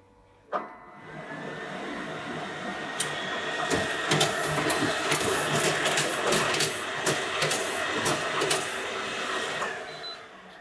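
A two-drum risograph starts and prints a single two-layer sheet. A click about half a second in, then the machine spins up and runs with rapid clicking and clatter as the paper feeds past both drums, then winds down near the end as the print is ejected.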